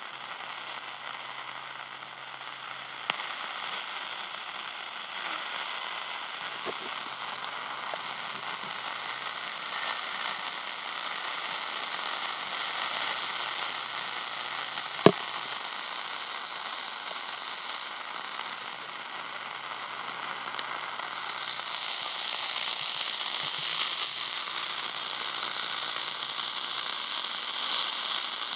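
Shortwave radio receiver hissing with static while being tuned up through the 19-metre band, with no station coming through. A sharp click about three seconds in, and a louder one about halfway through.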